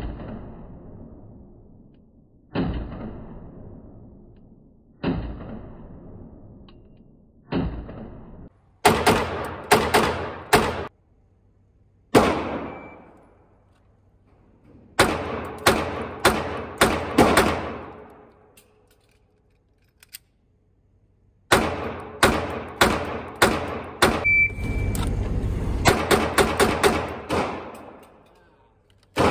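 Ported CZ P-10 F pistol firing: four single shots about two and a half seconds apart, then several rapid strings of shots. Each crack rings out in the reverberant indoor range.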